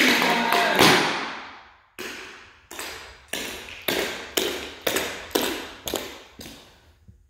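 The music ends on a final hit that fades out over about a second. Then come about nine sharp taps, roughly two a second, from clogging shoes with metal taps walking across a wooden floor, each with a short echo.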